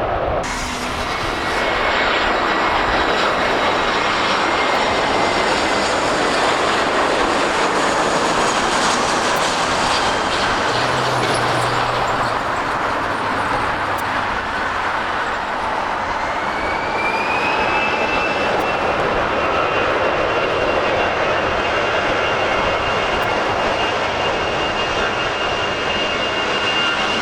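Jet airliner engines running loud and steady, with a high whine that rises about two-thirds of the way through and then holds.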